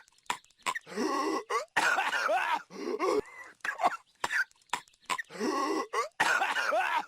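Cartoon character's voice coughing and hacking over and over: rasping coughing fits of a second or more, broken by short, sharp single coughs.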